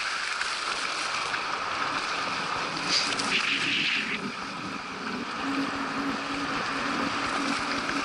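Steady rush of water and wind hiss from a kiteboard gliding across the water, picked up by an action camera, with a brief louder hiss about three seconds in.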